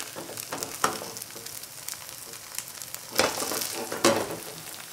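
Kimchi pancake frying in hot oil in a non-stick skillet: a steady crackling sizzle as freshly added oil runs under the pancake, swelling louder twice about three and four seconds in.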